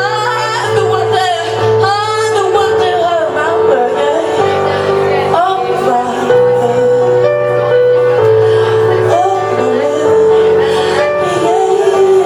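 Live groove band music with singing over held bass notes that change every second or two.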